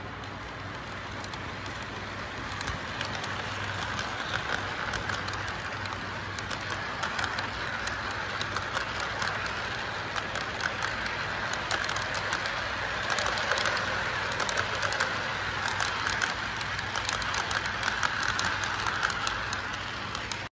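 Lionel model train running on its track: a steady rolling rattle with many quick clicks of the wheels over the rail joints, over a low hum. It grows louder over the first few seconds, then holds steady.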